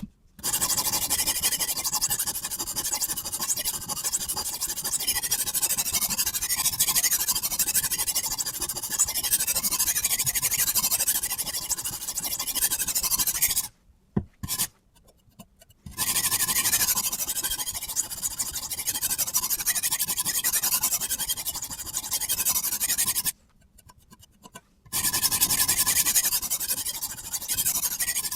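Abrasive sharpening stone on a guided-angle knife sharpener rasping steadily along a kitchen knife's edge. It stops twice, for about two seconds and then about a second and a half.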